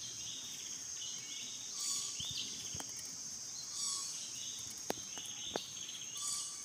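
Outdoor ambience: a steady high insect drone with short chirps repeating every second or so. Two sharp clicks come close together near the end.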